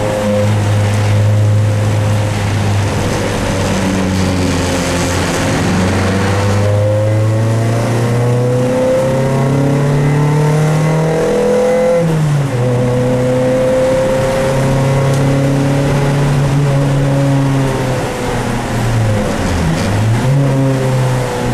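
Dodge Neon race car's four-cylinder engine heard from inside the cabin, pulling hard: its pitch climbs under acceleration, drops sharply at an upshift about twelve seconds in, climbs again, then dips near the end as the car slows for a corner.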